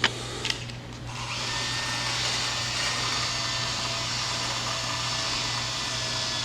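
Two light clicks, then the small electric drive motors of a hobby wheeled robot start about a second in and run with a steady whir. One motor is spinning faster than the other.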